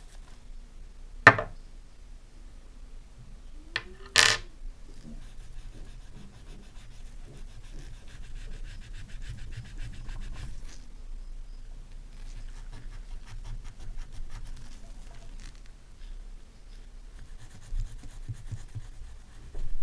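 Steel wool rubbing a small brass lighter part in quick short strokes: a fine scratching that runs in two stretches with a brief pause between them. Two sharp clicks come before it, the first about a second in and the loudest, the second about four seconds in.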